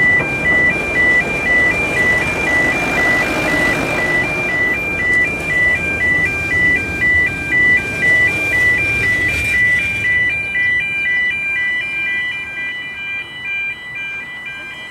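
Level crossing warning alarm sounding a rapid two-tone warble, over the rumble of narrow-gauge railway carriages rolling past, which dies away about ten seconds in while the alarm keeps sounding.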